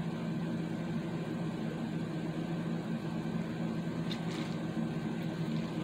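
A steady low mechanical hum with several even tones, like a running appliance or fan. There is a faint click about four seconds in.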